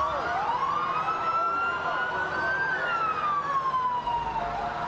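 Emergency vehicle sirens wailing, several at once. The loudest rises, holds for a couple of seconds, then slowly falls, while others wail up and down underneath.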